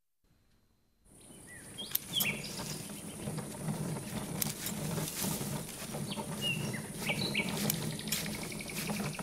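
Cartoon garden ambience that starts after about a second of silence: short bird chirps over a steady insect-like hiss, with scattered sharp clicks.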